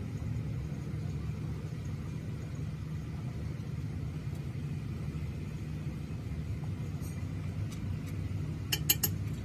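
A steady low machine hum, with a quick cluster of sharp metal clinks near the end.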